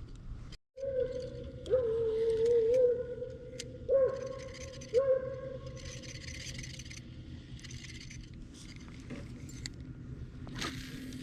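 Electric trolling motor whining steadily, its pitch wavering and dipping briefly about three times, with scattered faint clicks.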